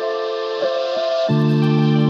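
Background music: soft keyboard notes that change pitch every half second or so, giving way a little over a second in to a louder sustained chord.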